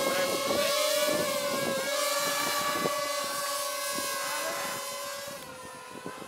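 Small quadcopter drone flying overhead, its propellers giving a steady whine whose pitch wavers as the motors adjust in gusty wind. Wind buffets the microphone, and the whine fades near the end.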